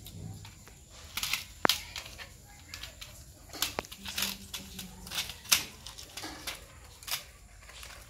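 Electrical wires and a plastic switch board being handled: scattered light clicks and rustles as the wires are moved around the board's terminals, the sharpest about one and a half, four and five and a half seconds in.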